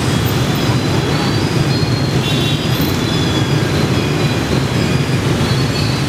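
Dense motorbike and scooter traffic: many small engines running past at once in a steady, unbroken drone.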